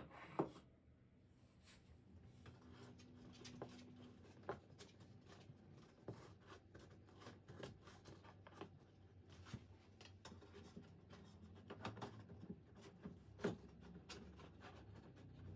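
Faint handling sounds of a curved metal shower rod being fitted into its wall-mount flange: light scattered clicks and rubbing, with two sharp clicks right at the start.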